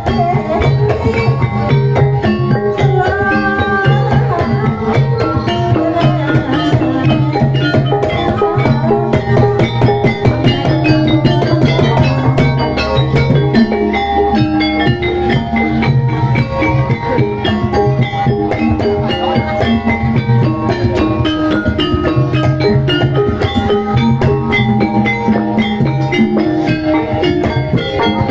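Javanese gamelan-style ebeg (kuda lumping) accompaniment music: mallet-struck melody instruments play many short notes over hand drums and a low repeating bass note, in a steady, unbroken rhythm.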